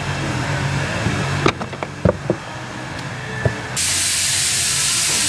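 Small plastic access cover in the rear trim being pried off its clips to reach the rear strut's top mount nut: a few sharp clicks and snaps over a steady hiss. The hiss grows louder and brighter near the end.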